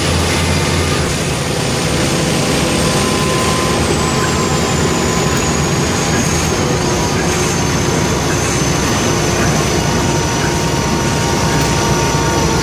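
Mercedes-Benz O345K articulated bus under way, its OM447hLA diesel engine and Voith DIWA automatic transmission running, with the exhaust burst. A low engine drone eases off about a second in, while a thin high whine slowly falls in pitch.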